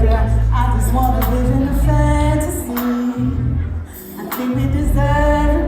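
Live R&B band playing with heavy sustained bass, while a singer holds long, wavering sung notes over it. The bass drops out briefly about three to four seconds in.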